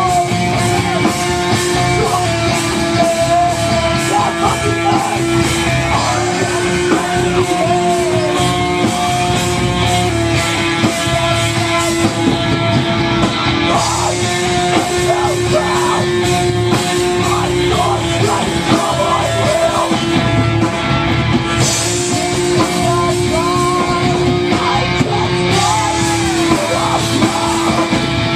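A rock band playing live, with electric guitar to the fore and held notes over a steady, loud backing.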